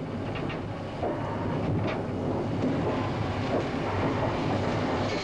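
Steam banking engine, a Jinty 0-6-0 tank, running along the track, heard from its footplate: a steady mechanical noise with a few light knocks.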